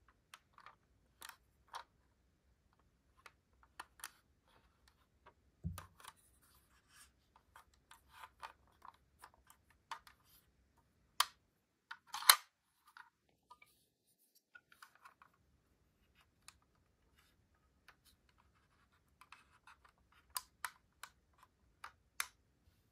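Small clicks, taps and scratches of a 1/24 diecast model van being handled in the hands, its tiny doors being worked open and shut. A dull bump comes about six seconds in, and the sharpest clicks come about eleven to twelve seconds in.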